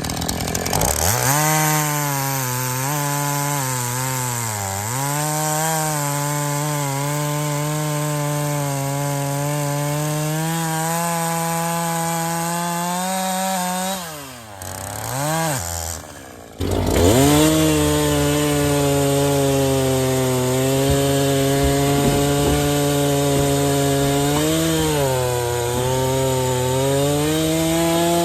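Two-stroke chainsaw cutting maple, its engine held under load with the pitch sagging and recovering in the cut. About halfway through it drops off for a couple of seconds, then revs back up sharply and keeps cutting.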